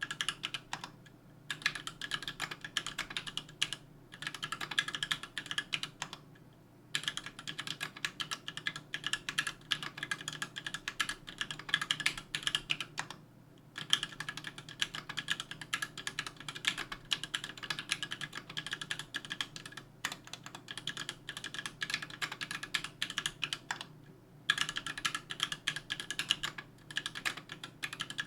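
Fast typing on a 60% mechanical keyboard with an aluminum case and plate, JWK H1 linear switches and GMK keycaps: a dense run of key clacks, broken by a few short pauses.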